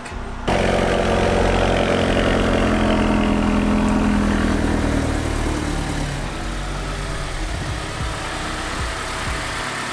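A Mazda3's engine running steadily. It sets in suddenly, eases down slightly in pitch a few seconds in, and grows quieter over the last few seconds.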